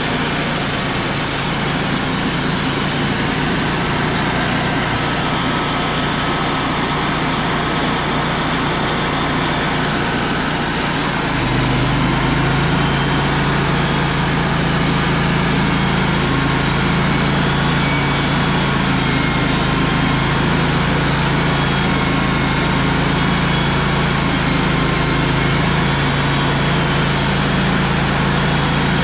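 Wood-Mizer LT35 portable band sawmill running steadily, its engine hum growing louder and deeper about eleven seconds in.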